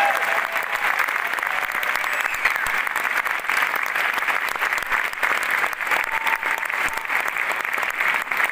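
Large theatre audience applauding, a dense, steady ovation of many hands clapping.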